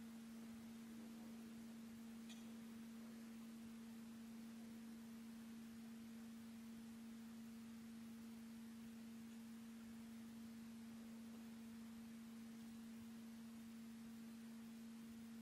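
Near silence with a faint, steady hum: one unchanging low tone with a fainter overtone above it. A faint click comes about two seconds in.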